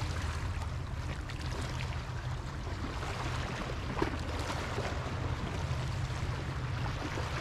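Small sea waves washing and lapping against shore rocks, over a steady low rumble of wind on the microphone. A single brief click about four seconds in.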